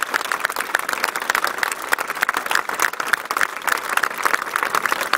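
A crowd applauding: a dense, steady patter of many hands clapping.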